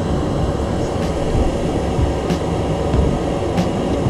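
Solder fume extractor's fan running with a steady, loud rushing drone, with a couple of faint ticks.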